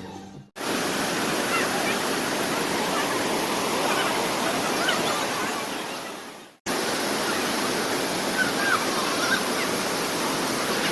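Waterfall's rushing water, a steady, even rush that starts about half a second in, fades and cuts out briefly near six and a half seconds, then comes back at the same level.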